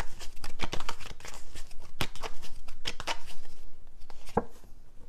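A tarot deck shuffled by hand: an irregular run of quick card clicks and slaps, dense at first and then sparser, with a few sharper snaps.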